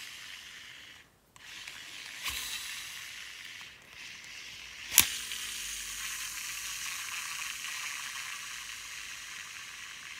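Shimano Exsence DC baitcasting reel's spool spinning freely: a steady high hissing whir from the digital-control (DC) magnetic brake, in several spins, with a sharp click about five seconds in and then a long spin that slowly fades. On this reel the DC brake sound has gone faint since an odd backlash.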